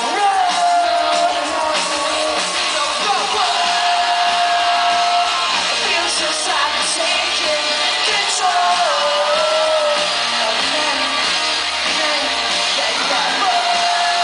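Live pop-rock band playing through a PA: electric guitars, drums and a singer holding long notes, heard loud from the audience with some shouting.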